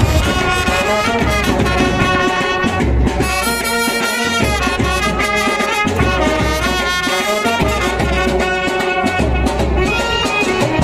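Background music: a brass melody over a steady low beat.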